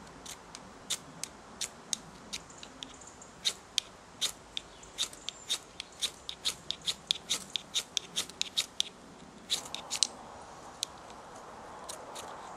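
Ferrocerium rod (fire steel) struck over and over: dozens of quick, sharp scrapes at an uneven pace, some in rapid runs, throwing sparks at damp birch-bark shavings that are not catching.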